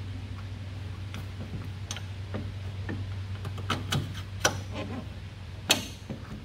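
Scattered light metal clicks and knocks as the rear knuckle is fitted onto the suspension arm and a mounting bolt is pushed through its grease-packed sleeve. The two sharpest knocks come in the second half, over a steady low hum.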